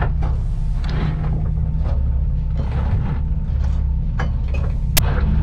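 A sailing catamaran under way, heard from inside its cabin: a low steady drone with repeated rushes of water along the hull, and one sharp click about five seconds in.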